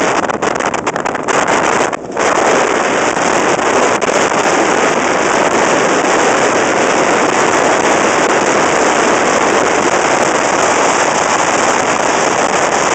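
Steady rushing noise of an iceboat sailing across lake ice: the runners hissing over the ice, mixed with wind buffeting the microphone. There is a brief lull about two seconds in.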